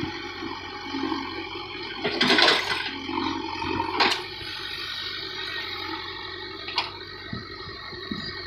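JCB 3DX backhoe loader loading soil: a diesel engine runs steadily while loose soil rushes out of the bucket, loudest about two seconds in, with a shorter rush about four seconds in.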